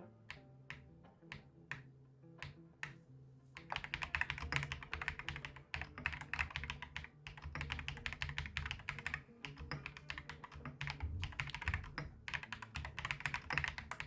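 Mechanical keyboard fitted with MMD Holy Panda tactile switches (67 g, factory-lubricated) being typed on: a few separate keypresses, then fast continuous typing from about three and a half seconds in, with a slightly creamy sound.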